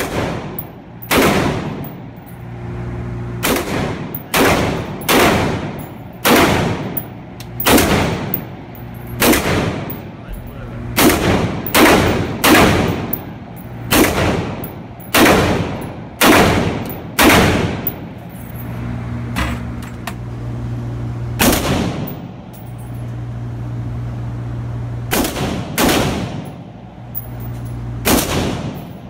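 AR-15 semi-automatic rifle fired shot after shot at an uneven pace, often two shots close together, each crack echoing in an indoor shooting range. There is a pause of a few seconds past the middle, and a steady low hum between shots.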